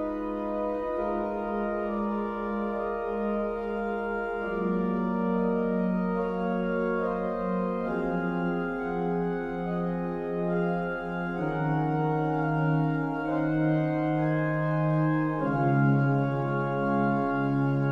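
Pipe organ playing slow, held chords that change every three to four seconds, the bass line stepping down with each change.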